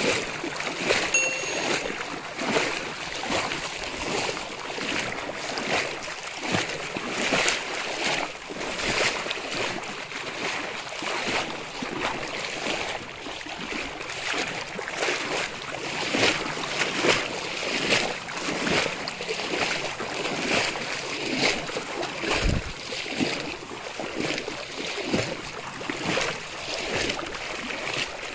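Water splashing and sloshing steadily, in irregular surges, as something moves through water.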